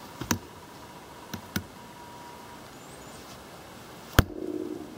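A compact golok chopping blade striking the top of a wooden stake: a few sharp knocks, then a much harder blow about four seconds in, followed by a brief buzzing rattle.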